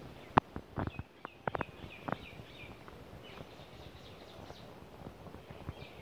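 Footsteps on a dirt path, a handful of sharp steps in the first two seconds, with small birds chirping in short repeated calls over the first half.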